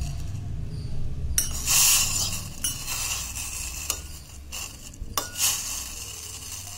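A metal spoon stirring water and China grass (agar-agar) in a stainless steel pot, scraping and clinking against the pot's sides and bottom in uneven strokes, with a few sharp clinks. A low steady hum runs underneath.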